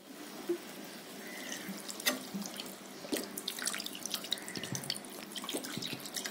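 Water splashing and sloshing as it is added to mutton curry in an aluminium pressure cooker and stirred through with a flat steel spatula, in many small irregular splashes.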